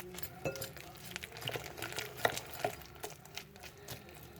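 A utensil stirring tempura batter in a bowl, with soft, irregular clicks and taps against the bowl.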